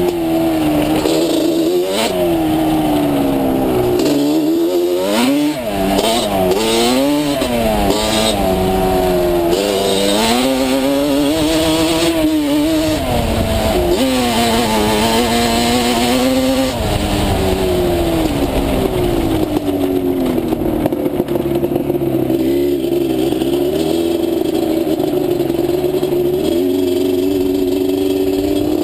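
Yamaha Banshee's two-stroke twin-cylinder engine on a trail ride, revving up and down repeatedly with the throttle, then running at a steadier speed for the second half before revving up again near the end.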